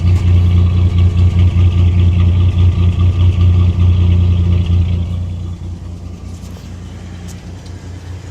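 A 1993 Chevy S10's 2.8-litre TBI V6 running, heard up close, with a fast pulsing beat that the owner calls a weird tapping noise in the exhaust. It gets quieter about five seconds in.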